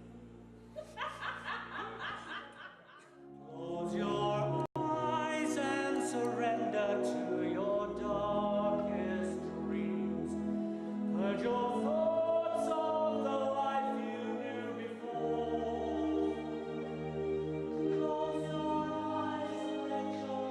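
Small vocal group singing in close harmony, held chords with several voices together. The first three seconds are quieter and more broken up; the full harmony comes in about three and a half seconds in, with a split-second dropout soon after.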